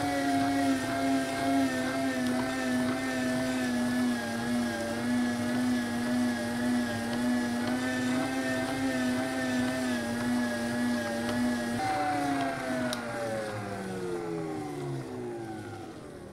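Electric meat grinder's motor running steadily with a slightly wavering hum as it grinds chocolate-coated wafer cookies. About twelve seconds in it is switched off and winds down, the hum falling steadily in pitch and fading.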